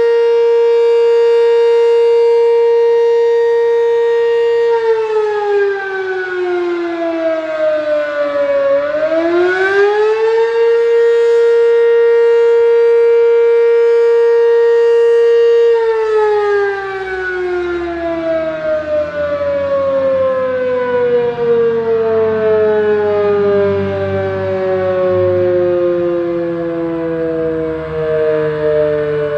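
Sentry M-10 dual-tone chopper siren sounding its attack signal: two tones an octave apart held steady, then sliding down in pitch and climbing back, held again, and about halfway through beginning a long, slow fall in pitch. Very loud.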